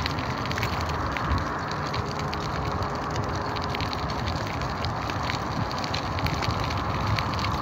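Bicycle rolling fast along a gritty road shoulder, heard from the rider: a steady rushing noise of tyres and wind on the microphone, with a continuous crackle of small grit under the wheels.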